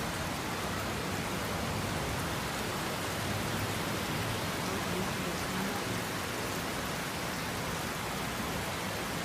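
Heavy rain with rushing floodwater: a steady, even hiss that does not change.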